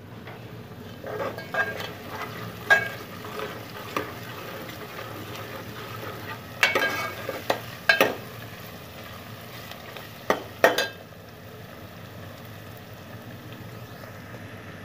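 Sliced onions and cumin seeds frying in oil in a steel pot, a steady sizzle. A steel ladle stirs them, scraping and clinking against the pot several times, most sharply about two thirds of the way through, then the stirring stops for the last few seconds.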